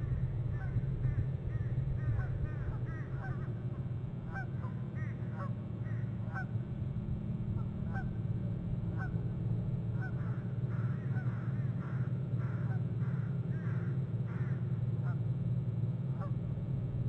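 Birds calling over and over in short, honking notes, busiest from about ten to fifteen seconds in, above a steady low rumble.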